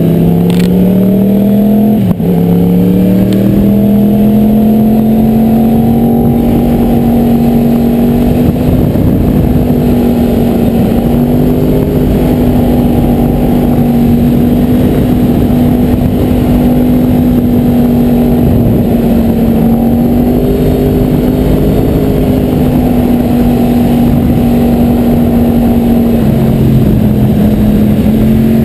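2010 Yamaha R1's crossplane inline-four running through a GYTR aftermarket exhaust, pulling up through the revs with a quick upshift about two seconds in, then holding a fairly steady pitch under throttle, with a short dip near the end.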